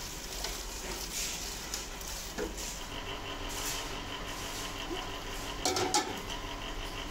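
Hot water hissing and splashing in a drum of soapy washing water, with metal pots clinking together a few times near the end.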